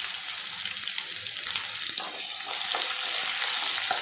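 Freshly added sliced onions sizzling in hot oil with fried chana dal and urad dal. From about two seconds in, a metal ladle scrapes and stirs them in the pan.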